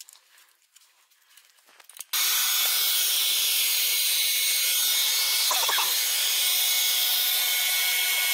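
Handheld air blower switched on about two seconds in, blowing a steady rush of air through a taped-on straw nozzle into an opened sewing machine's mechanism, with a brief whistle partway through.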